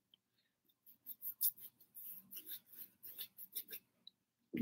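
Faint scratchy strokes of a paintbrush scrubbing paint onto a stretched canvas, a few irregular strokes a second, starting about a second in.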